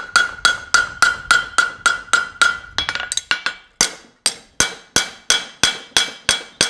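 Farrier's hammer striking a steel horseshoe held in tongs on an anvil in quick, regular blows, about four a second, each with a short metallic ring, while working the edges of a reverse bar shoe. A brief pause a little past halfway, then the blows resume.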